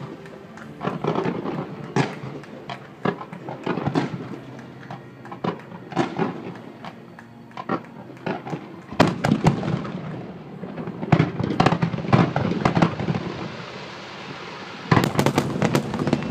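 Fireworks display finale: bangs from bursting shells about once a second at first, then dense rapid volleys of bangs from about nine seconds in, with another thick burst near the end. Heard through a smartphone's microphone.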